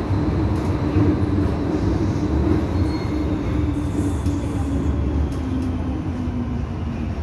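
Interior running sound of an MTR M-Train metro car in a tunnel: a steady low rumble of wheels and running gear with a motor tone that slowly falls in pitch as the train slows.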